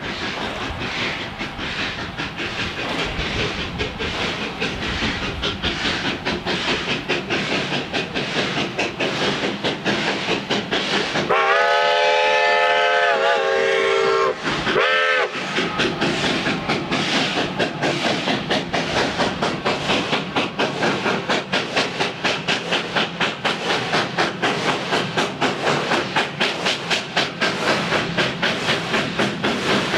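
Durango & Silverton K-36 steam locomotive No. 480 arriving, its chime whistle sounding one long blast and then a short one about halfway in. Under it runs the steady rhythmic beat of the moving train, about two beats a second in the second half.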